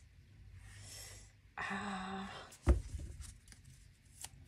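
A woman breathes in and gives a short hummed "mm", then a single soft thump on the table about two and a half seconds in, followed by a few faint taps.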